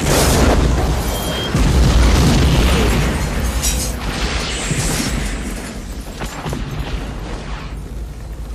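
A laser-guided bomb exploding: a sudden loud blast followed by a long low rumble that swells again about a second and a half in, then slowly dies away.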